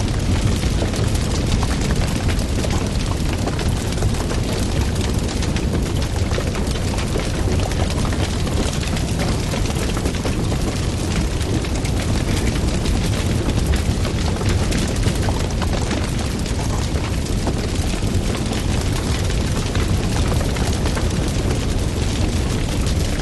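Wood fire burning loudly, a dense low rumble of flame with constant crackling and popping.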